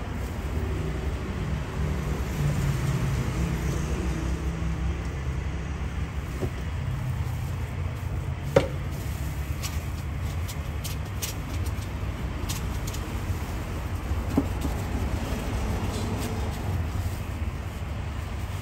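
Steady low rumble of road traffic, with scattered knocks and taps as a knife cuts a cake on a plastic cutting board. One sharp knock stands out about eight and a half seconds in.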